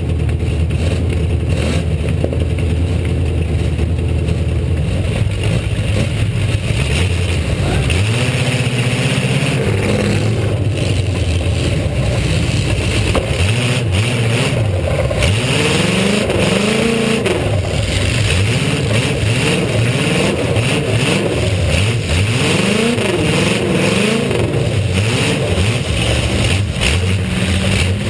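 Eight-cylinder demolition derby car engine, idling unevenly for several seconds, then revving up and down again and again as the car accelerates and backs off.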